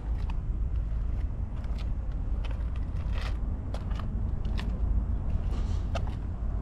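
Steady low rumble with scattered light clicks and crackles.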